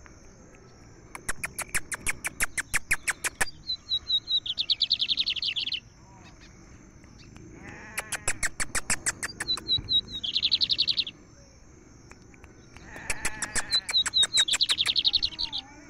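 Lined seedeater (bigodinho) singing three song phrases with short pauses between. Each phrase is a quick run of sharp clicking notes, then a few high notes leading into a buzzy trill.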